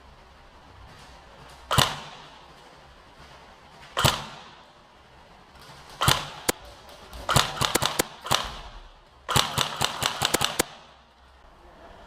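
Airsoft gun firing: single shots about two seconds apart, then two quick strings of several shots in the second half.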